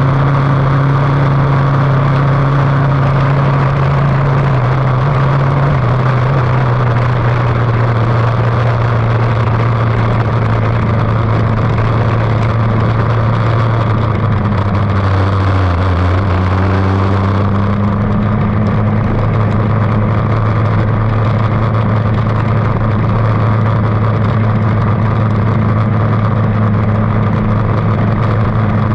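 Lightning sprint car's engine running loud and steady without big revs. Its note eases slightly lower over the stretch, with a brief dip about halfway through.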